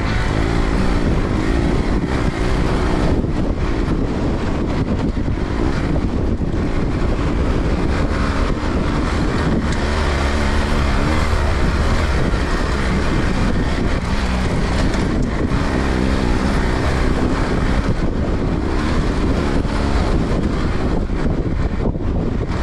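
Motorcycle engine running with its pitch rising and falling as the revs change, under steady wind noise on the microphone.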